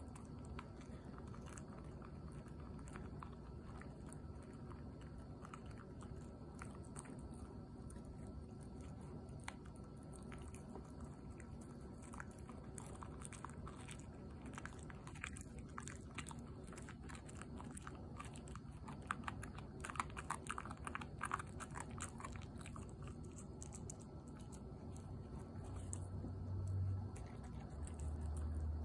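American cocker spaniel gnawing on a knotted chew bone: faint wet chewing with scattered crunchy clicks, busiest about two-thirds of the way through. A couple of low bumps near the end.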